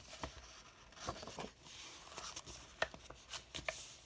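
Loose sheets of old book paper being handled and laid onto a stack: intermittent rustling with a few light taps as the pages slide and settle.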